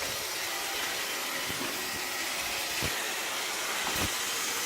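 iRobot Roomba 680 robot vacuum running, a steady whirring hiss from its motor and brushes, with a couple of faint knocks.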